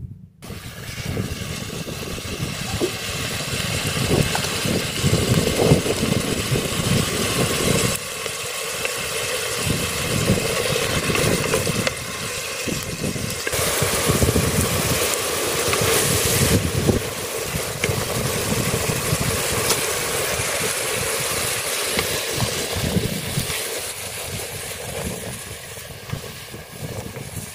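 Wood fire burning under a pot of frying zucchini, with gusty wind rumbling on the microphone.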